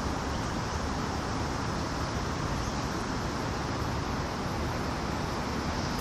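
Wind buffeting the camera's microphone outdoors: a steady rushing hiss over a choppy low rumble.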